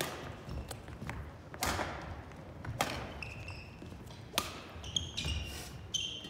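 Badminton rally: rackets striking the shuttlecock in sharp, echoing hits about every one to one and a half seconds, with short high squeaks of court shoes on the hardwood gym floor.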